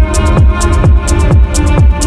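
Electronic dance music with a kick drum beating about twice a second, quick ticking hi-hats and held synth chords.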